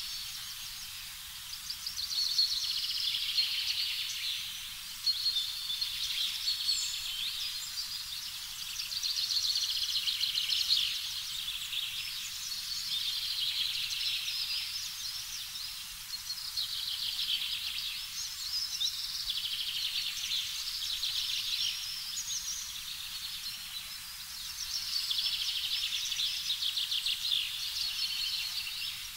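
A chorus of rapid, high-pitched chirping trills, typical of an outdoor nature ambience, swelling and fading in waves every few seconds.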